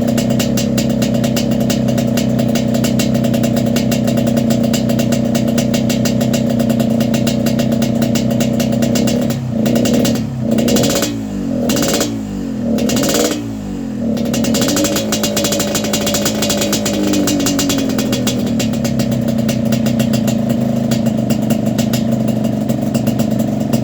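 Yamaha RX-King 135cc two-stroke single running through a Medan-style 'kolong' exhaust, holding a steady note. About ten seconds in, a few quick throttle blips rise and fall in pitch over roughly four seconds before it settles back to its steady running.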